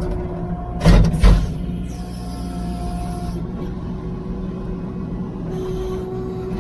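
Diesel engine of a tractor or skid steer running steadily, with two loud clunks about a second in and a thin steady whine over it.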